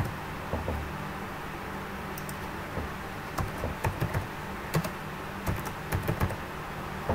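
Typing on a computer keyboard: keystrokes in short irregular clusters over a steady low hum.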